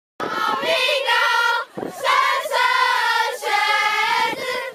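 A group of teenage girls singing together as a chorus in held, sustained notes. The singing breaks off briefly for breath twice before carrying on.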